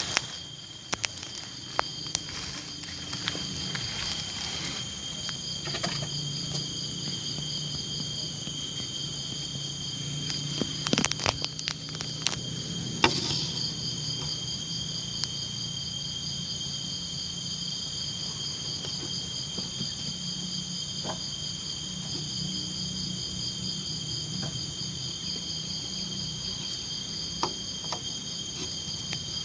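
Crickets trilling steadily in a continuous chorus, with scattered clicks and knocks, the loudest a few around a third of the way in.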